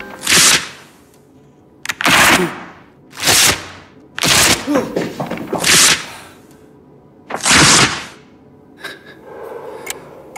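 Six loud rushing bursts of noise, each about half a second long, roughly one every one and a half seconds. Faint clicks follow near the end.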